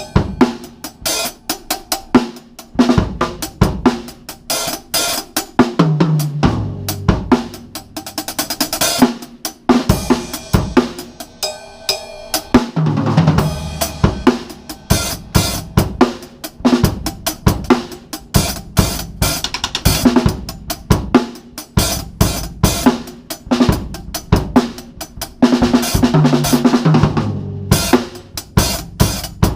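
Acoustic drum kit being played: bass drum, hi-hat, cymbals, and a snare drum with its snare wires engaged. A steady groove is broken by several drum fills, with a spell of ringing cymbals about ten seconds in.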